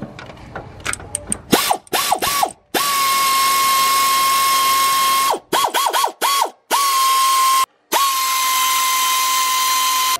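Pneumatic air ratchet spinning bolts out. It starts with a few quick trigger blips of high whine, then runs in long steady stretches of the same high whine with air hiss. It stops briefly twice, about halfway through and again about three-quarters of the way in.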